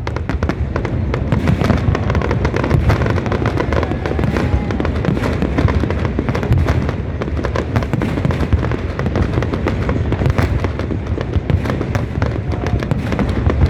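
Fireworks going off in a dense, continuous barrage: many overlapping bangs and crackles over a low rumble, with no break.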